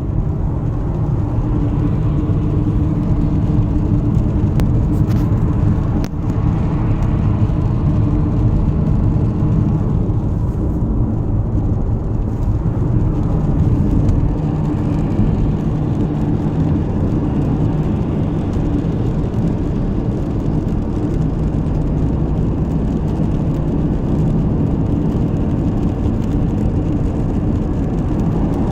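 Skoda car on the move: steady road and running noise with a low, strange hum from the front of the car, whose source the owner has not been able to locate.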